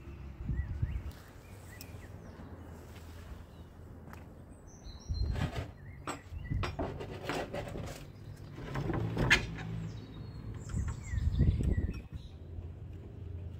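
Small birds chirping in short calls, with a low steady background hum and several louder bursts of noise in between.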